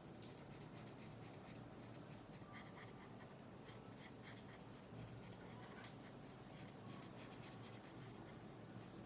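Faint scratching of a water-based felt-tip marker rubbing across paper in short, irregular strokes while colouring in.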